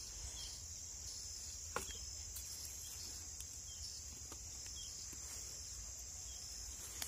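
Steady high-pitched chirring of insects, with a few faint knocks of dry sticks being handled and laid down, the sharpest about two seconds in.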